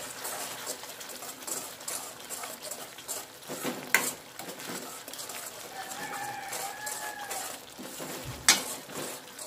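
Steel ladle stirring a thin, watery gravy in a stainless steel kadai, scraping around the pan, with sharp clanks of ladle on metal about four seconds in and again near the end. A faint drawn-out pitched call sounds for about a second and a half around the middle.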